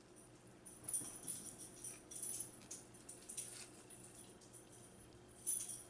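Close-up crisp crackling and crinkling in irregular bursts as a wrap is handled and eaten, with louder bursts about a second in and near the end.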